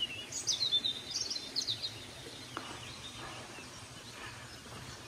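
Small birds chirping and twittering, with a burst of short, high calls in the first couple of seconds and a few fainter ones later. Under them runs the faint, steady rush of flowing water.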